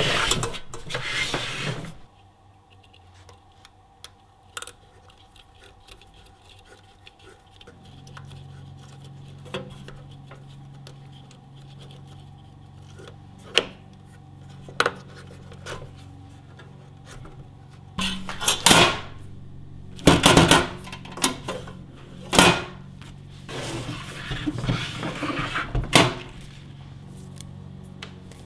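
Handling noise from setting up a small flux-core MIG welder: clicks and clatter of plastic and metal parts as the wire is fed into the drive-roll feeder, then rustling and knocking of the torch cable. A steady low hum comes in about eight seconds in, and the clatter is loudest in several bursts in the second half.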